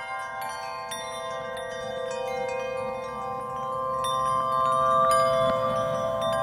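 Background music: chiming, bell-like notes struck over sustained tones, growing gradually louder.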